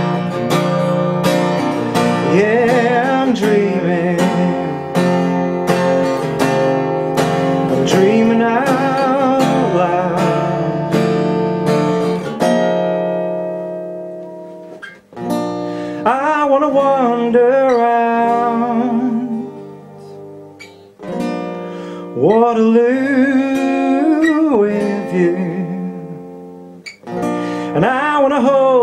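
Acoustic guitar strummed steadily with a man singing long, wavering phrases over it. About twelve seconds in, the steady strumming stops and single chords are struck and left to ring under the voice.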